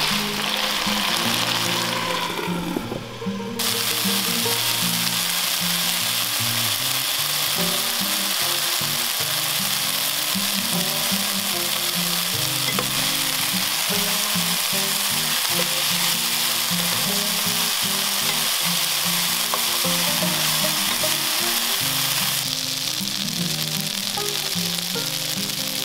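Green beans and pork slices sizzling as they stir-fry in a non-stick pan, turned with a wooden spatula. The sizzle is steady, dropping briefly about three seconds in.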